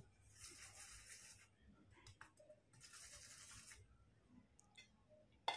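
Metal spoon spreading desi ghee over a paratha on a hot iron tawa: two faint scraping strokes, about a second each, with a couple of light clicks of the spoon in between.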